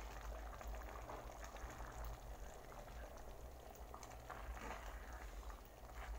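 Green gram (mung bean) stew bubbling in a pan at a boil, with many small pops, as a metal spoon stirs through it.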